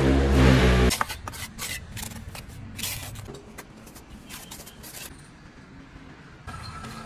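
Steel trowel scraping and clinking against a metal basin while stirring wet cement mortar, in irregular strokes. A loud pitched drone fills the first second and cuts off suddenly, and a steady hum comes in near the end.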